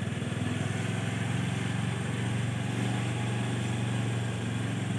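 An engine idling steadily: an even, low hum that holds without change.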